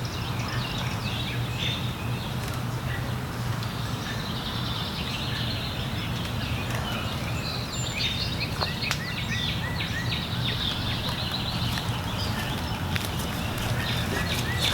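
Outdoor ambience: a steady low hum with birds chirping, a short run of repeated chirps about halfway through and again near the end, and a few light clicks.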